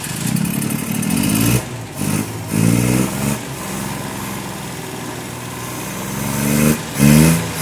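Daihatsu Cuore's small three-cylinder petrol engine catching and running right after a head gasket replacement, revved up in several short blips between steadier running.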